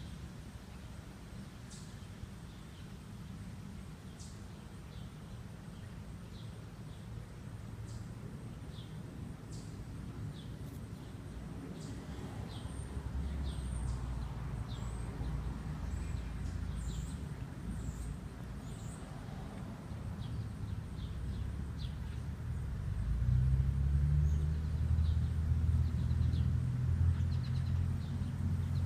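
A low motor rumble that grows louder about halfway through and is loudest near the end, with short high chirps scattered throughout.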